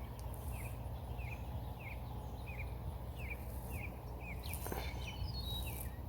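A bird calling over and over, a short falling note about twice a second, with a few higher chirps in between. Underneath runs a steady low outdoor rumble.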